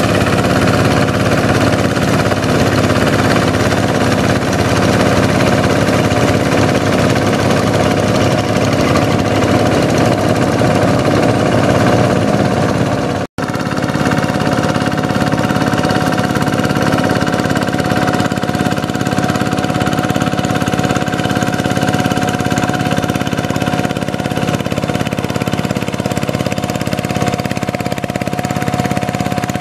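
Single-cylinder diesel engine of a two-wheel hand tractor running steadily under load as it tows a puddling sled through flooded rice-paddy mud. The sound breaks off for a moment about 13 seconds in, and after that a thin steady whine runs along with the engine.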